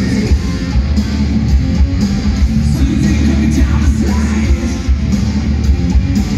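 Live hard rock band playing loud: distorted electric guitar, bass and drums under a male lead singer, heard from the crowd.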